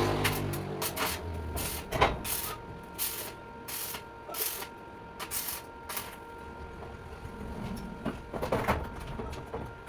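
A run of short sharp knocks and taps, roughly one a second, over a faint steady hum, as a passing vehicle's engine fades out at the start.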